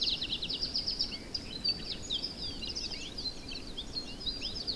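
Wild songbirds singing: a fast trill of high, downward-sweeping notes in the first second, then a scatter of varied short chirps and whistles.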